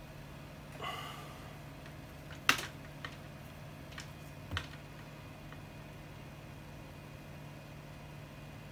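A few sharp clicks and taps of small parts and wire being handled on a workbench, the loudest about two and a half seconds in, with a brief squeak about a second in, over a steady low hum.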